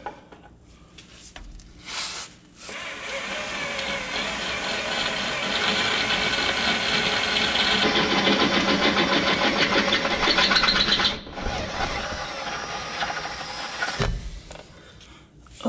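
Cordless drill boring a 3/8-inch hole through the steel frame rail of a Ram 2500 pickup, enlarging a pilot hole. After a brief trigger pull, the bit grinds steadily into the metal from a couple of seconds in, cuts out about eleven seconds in, then runs on more lightly.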